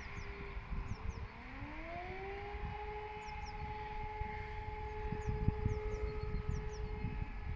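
Civil defense siren sounding the fire alarm: it winds up, its pitch rising over about a second and a half, then holds a steady tone. A more distant siren's steady tone fades out about a second in.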